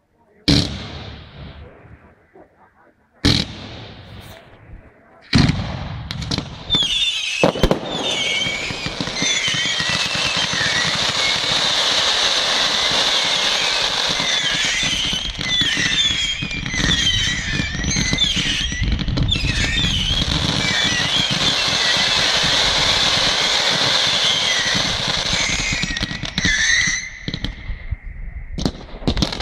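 Fireworks: a few single loud bangs in the first five seconds, then a dense barrage of crackling and hissing from fountains, mines and shells that runs for some twenty seconds, with many short high whistling squeals over it, and thins out near the end.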